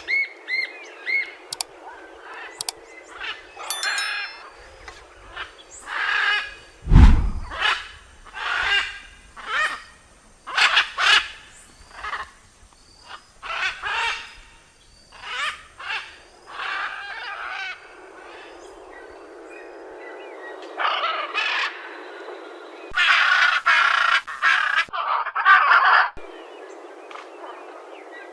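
Macaws calling: a run of harsh, raspy squawks roughly one a second, then a pause with a steady background hiss, and a dense cluster of squawks near the end.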